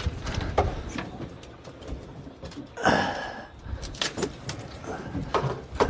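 Scattered sharp knocks and clatter on a small boat's deck as a freshly landed fish and tackle are handled, over steady wind and sea noise, with a louder rushing burst about three seconds in.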